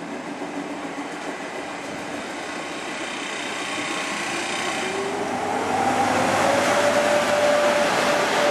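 VR Sr1 electric locomotive pulling away and passing close by with its train of coaches. A steady rumble of the running gear grows louder, and about five seconds in a whine rises in pitch and then holds steady as the locomotive gathers speed.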